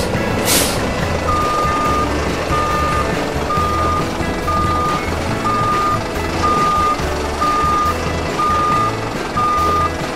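Truck reversing alarm beeping about once a second over a low diesel engine rumble. Two short air hisses come right at the start, before the beeping begins.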